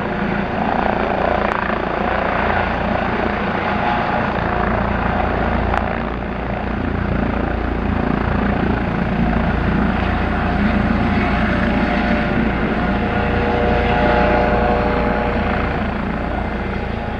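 Aircraft engine noise: a steady, loud rush with a low rumble, and faint whining tones joining about ten seconds in.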